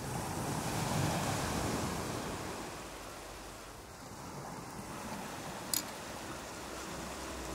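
Sea surf and wind: a wave surge swells over the first couple of seconds and then eases off. A single sharp click comes about six seconds in.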